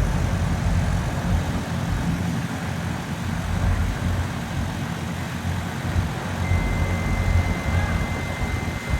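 Steady low rumble of vehicle engines and traffic on a road construction site. A thin, steady high whine joins in about six and a half seconds in.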